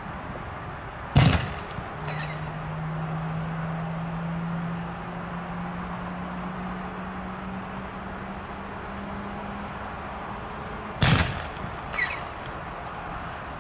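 Boeing 747-400F's four jet engines running at taxi power: a steady rumble with a low hum that rises slightly in pitch. Two loud, sharp bangs about ten seconds apart cut through it, each followed about a second later by a fainter crack.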